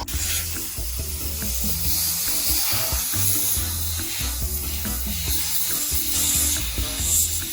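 Compressed air hissing steadily as it is blown over a disassembled chainsaw to clean it, with background music carrying a stepping bass line.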